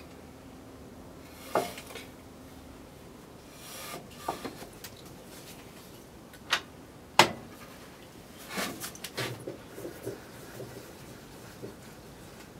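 A block of maple being handled, set down and slid on a table saw's metal top with the saw switched off: a few scattered knocks and scrapes, the sharpest about seven seconds in, then a run of smaller knocks.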